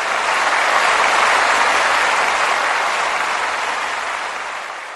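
Applause from a crowd, starting abruptly, swelling, then tapering off near the end.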